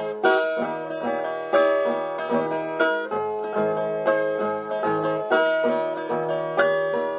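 Brazilian ten-string viola plucked in an instrumental interlude between sung verses. It plays a repeating phrase over bass notes, with a strong stroke about every second and a quarter.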